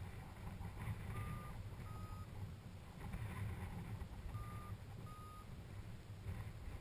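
Strong, gusty wind buffeting the microphone in a low, rough rumble. Short electronic beeps sound in two pairs, the second beep of each pair slightly higher.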